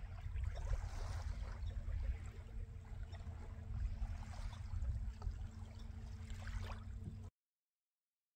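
Electric trolling motor on a kayak humming steadily as the kayak passes close by, under a heavy wind rumble on the microphone and light water sounds; everything cuts off about seven seconds in.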